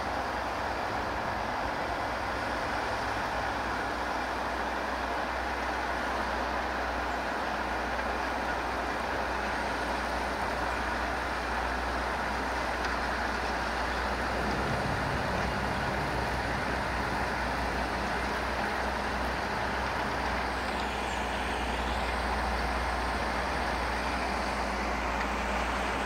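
JCB Fastrac 4220 tractor engine running steadily under load while pulling a reversible plough.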